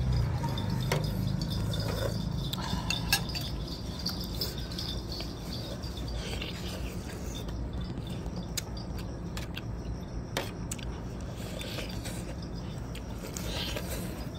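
A man eating with a metal spoon from a ceramic plate: occasional sharp clinks and taps of the spoon on the plate, the loudest about three seconds in, and chewing on a braised pork trotter, over a steady low hum.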